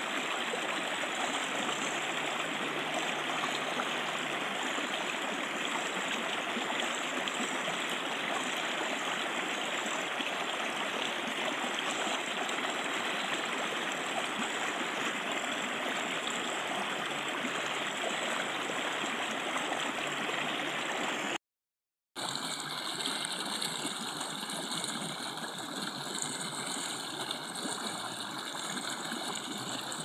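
Stream water rushing and splashing over rocks, a steady full rush. About two-thirds of the way through it cuts out completely for a split second, then resumes with a slightly different tone.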